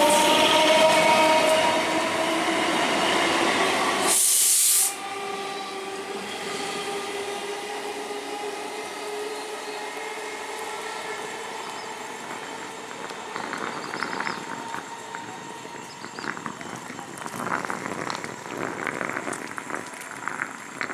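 Conventional EMU local train's electric traction motors humming in several tones that slowly rise in pitch as the train accelerates. A brief loud hiss about four seconds in, after which the sound is quieter and the rising hum carries on, with rattling clicks from the wheels on the rails near the end.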